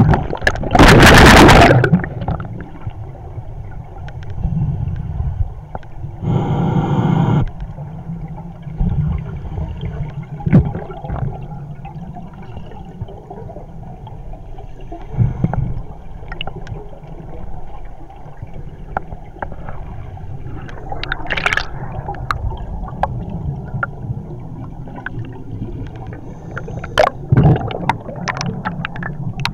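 Scuba diver's exhaled air bubbling out underwater in loud rushes, about a second in and again around six to seven seconds, with quieter gurgling and scattered clicks between and more bubble rushes near the end.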